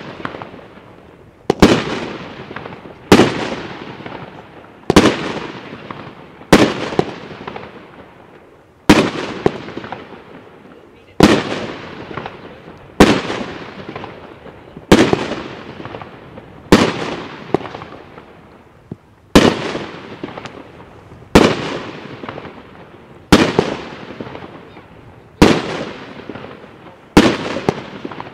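Aerial fireworks bursting overhead in a steady sequence of loud bangs, roughly one every two seconds and about fourteen in all. Each bang is followed by a fading tail.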